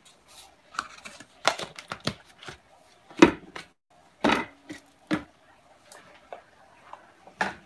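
Kitchen handling noises: a handful of sharp, irregular clicks and knocks as salt is added from a plastic container and a wooden spoon stirs grits in a saucepan.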